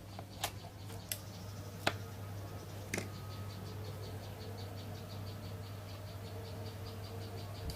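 Rhino 900-watt inverter welding machine, newly repaired, switched on and idling: a steady low hum, with faint rapid ticking about six times a second. A few sharp clicks come in the first three seconds.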